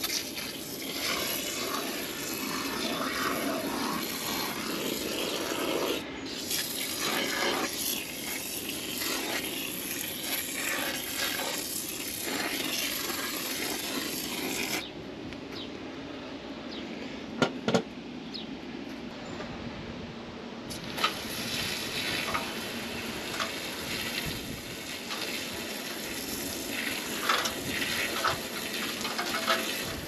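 Garden hose spray nozzle on its jet setting, shooting water up into soffit vents: a steady hiss of spray and splashing. The sound changes abruptly a few times, and two sharp clicks come about halfway through.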